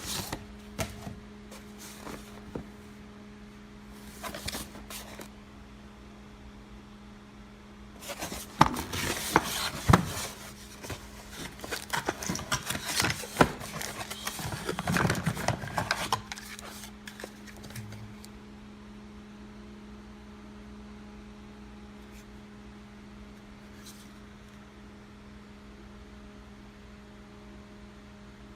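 Handling noise: scattered clicks, then a stretch of rustling, rubbing and knocking from about eight to sixteen seconds in, over a steady low hum.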